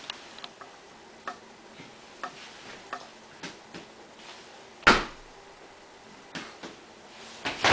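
Light taps and small handling clicks as a knee reflex is tested, with one sharp knock about five seconds in and another near the end.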